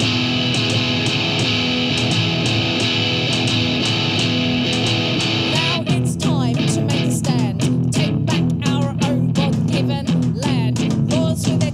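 Live punk rock band playing: distorted electric guitar and drums in an instrumental passage, then a woman's lead vocal comes in about six seconds in over the guitar and drums.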